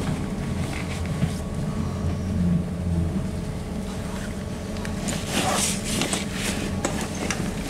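ZiU-682 trolleybus heard from on board: a steady low rumble with a constant hum, and a short stretch of hiss about five seconds in.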